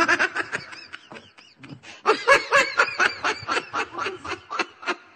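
A person laughing hard in quick, repeated bursts: a burst right at the start, a short lull, then a longer fit of laughter from about two seconds in.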